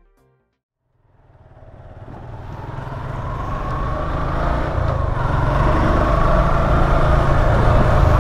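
Motorcycle riding noise heard through a lavalier mic tucked inside a helmet's chin pad with the visor open: a steady low rumble of wind and engine with a faint drawn-out whine. It fades in about a second in and settles at a steady loud level.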